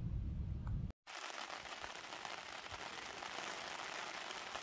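Heavy rain falling steadily in a thunderstorm, an even hiss. It is preceded by a low rumble that cuts off abruptly about a second in.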